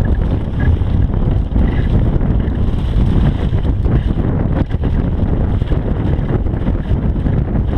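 Wind buffeting the camera microphone of a mountain bike descending fast, under the rolling noise of knobby tyres on dry leaves and dirt. Short knocks and rattles come from the bike over bumps.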